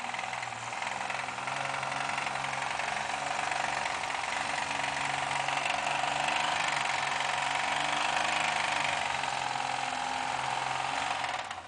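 Off-road vehicle's engine running steadily under load, then cutting off abruptly near the end. This is an engine with a connecting rod that has started knocking badly, which the owner first took for a ring-and-pinion noise; it turned out to be a broken rod with spun bearings.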